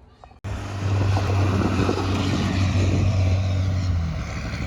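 A loud, steady engine drone with a low hum. It starts abruptly about half a second in, and the hum drops away about four seconds in.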